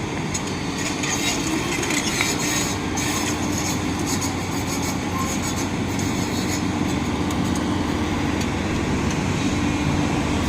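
Excavator at work on demolition clearing: a diesel engine running steadily under irregular metallic clanks and scraping from its tracks and bucket.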